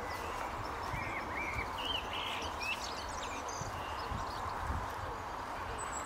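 Outdoor river-bank ambience: a steady hiss of background noise with a few short bird chirps about one to three seconds in, and several low thumps on the microphone.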